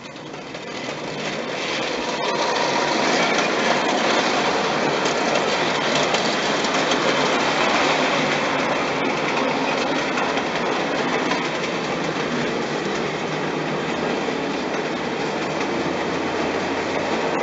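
Märklin gauge 1 HR Pacific model locomotive and its coaches running on metal toy-train track: a steady metallic rattle of wheels and running gear on the rails. It grows louder over the first two seconds as the train comes close, then holds steady.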